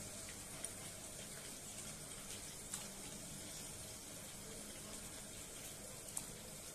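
Faint steady hiss of hot water in a steel cooking pot, with a few soft knocks as cauliflower florets are dropped in among the potatoes.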